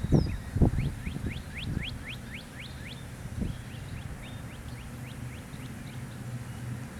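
A few dull thumps in the first second, then a songbird singing a quick run of short rising whistled notes, followed by a second, fainter run of shorter notes. A steady low hum lies underneath.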